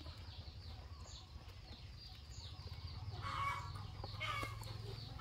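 Faint clucking calls of fowl, with a few louder clucks about three and four seconds in, over a low steady hum.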